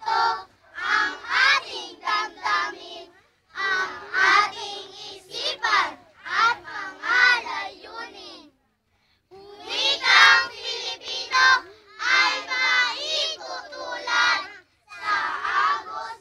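A group of young children singing together in unison, phrase by phrase with short breaths between lines and one brief break a little past halfway.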